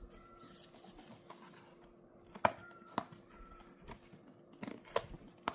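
The seal on a cardboard chocolate gift box being torn open by hand: a short tearing rustle, then several sharp clicks as the box is handled.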